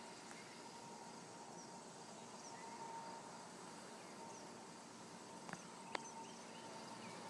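Faint outdoor ambience: scattered short bird chirps over a steady faint hum, with two sharp clicks about half a second apart near the end.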